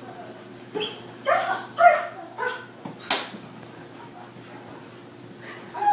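A German Shepherd giving a string of short, high, excited cries, typical of an overjoyed greeting. The cries come close together in the first half, with a sharp knock about three seconds in and another cry near the end.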